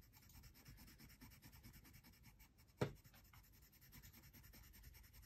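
Faint scratching of a black colored pencil shading on paper, with a single sharp click about three seconds in.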